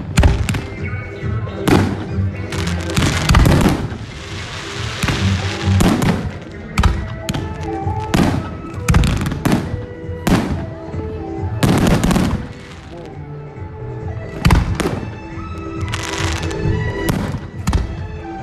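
Fireworks shells bursting overhead with a dozen or so sharp bangs in irregular succession, over music playing throughout.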